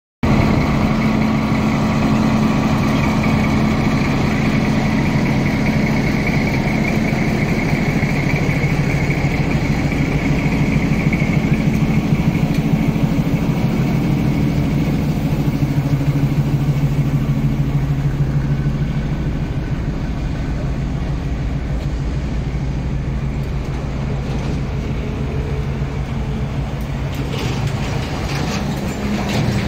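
Diesel locomotive engine running steadily at close range, a low drone with a steady hum, easing a little after about two-thirds of the way through.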